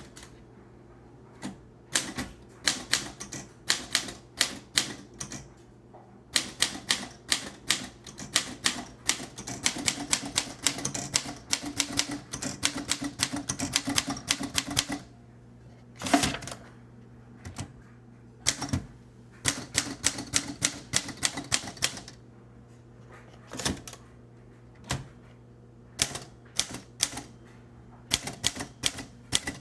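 1930s Underwood portable typewriter being typed on: runs of sharp key and typebar clacks broken by short pauses, with a heavier knock about sixteen seconds in.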